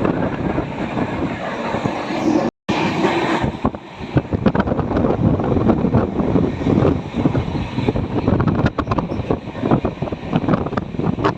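Wind buffeting the microphone: a loud, uneven rumbling rush. It cuts out completely for a moment about two and a half seconds in.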